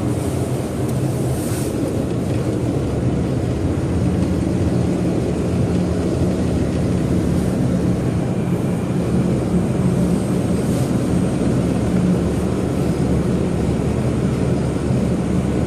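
Airliner jet engines running: a steady low rumble with a droning hum that grows stronger a few seconds in.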